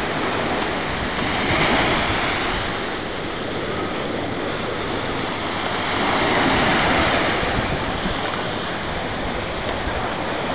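Sea surf washing onto a beach: a steady rush of waves that swells louder about two seconds in and again around six to seven seconds in.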